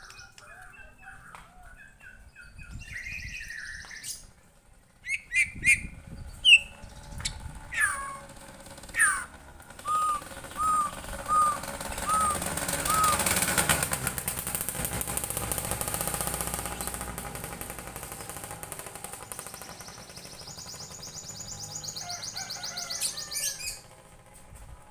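White-rumped shama (murai batu) singing: loud, sharp whistled notes and quick glides, a run of five repeated notes, and near the end a fast, high trill.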